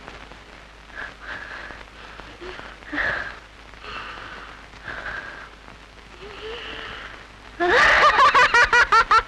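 A quiet stretch with faint, indistinct sounds, then near the end a person bursts into loud, rapid laughter, about five bursts a second.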